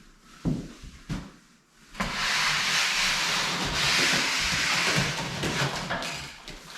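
Water sprayed onto a popcorn ceiling to dampen the texture before scraping: a steady hiss lasting about four seconds, starting about two seconds in, after a couple of light knocks.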